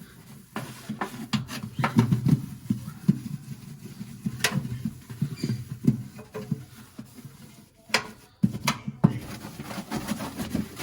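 A damp dish sponge scrubbing the inside of a microwave oven in quick, irregular rubbing strokes, with a few sharp clicks and knocks against the oven's walls.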